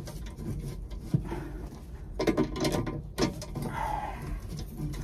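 Hand tubing cutter being turned around a copper water pipe to cut out a split section, the metal clicking and scraping irregularly, with a denser cluster of clicks about two seconds in.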